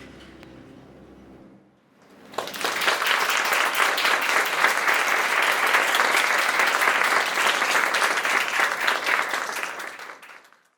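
The band's last note rings and dies away, then, after a moment of near quiet, a live audience applauds. The applause fades out near the end.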